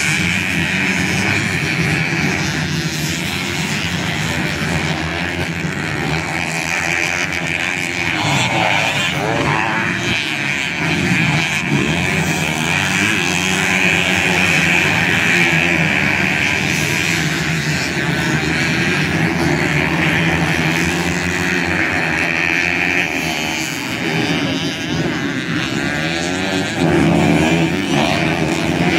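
A pack of standard underbone motorcycles racing together, many small engines running at once with overlapping pitches rising and falling as riders throttle up and back off.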